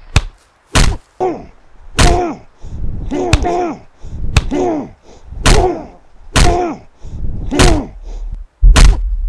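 Punches landing in a fight, about eight sharp smacks roughly a second apart, each followed by a short grunt that falls in pitch. Near the end deep, heavy thuds begin.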